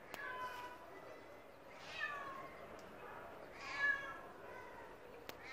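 A trapped cat meowing three times, about two seconds apart, each call falling in pitch; the third is the loudest.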